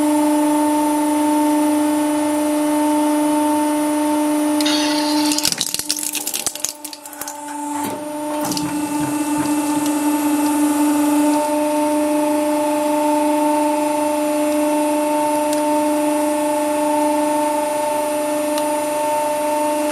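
Hydraulic press motor humming steadily while a toy model Audi R8 is crushed. About five seconds in comes a burst of cracking and crunching as the model's metal body and plastic parts give way, lasting about three seconds.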